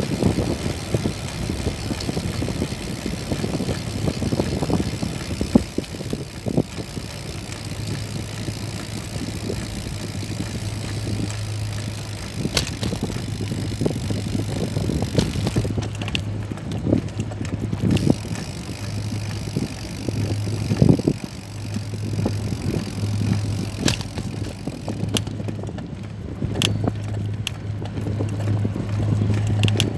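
A motor running steadily with a low hum that comes in about a quarter of the way through, over constant outdoor noise and scattered knocks and clicks.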